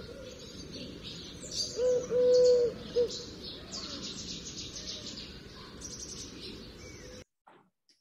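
Eurasian collared-dove singing one three-note coo, short–long–short, about two seconds in, with smaller birds chirping in the background. The recording cuts off suddenly near the end.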